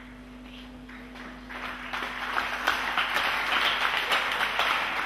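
A congregation clapping and applauding. It builds up from about a second and a half in into dense, sustained applause.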